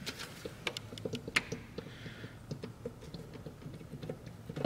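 Irregular light clicks and taps of metal tools and parts, several a second with a few sharper knocks, while a car's intake manifold is being worked loose.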